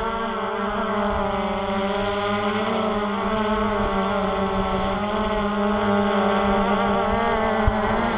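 DJI Phantom 2 quadcopter hovering close by: its four electric motors and propellers make a steady buzzing hum whose pitch wavers slightly as it holds position.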